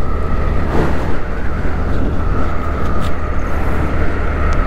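Motorcycle riding along a road: a steady rumble of engine and road noise with wind rushing over the microphone.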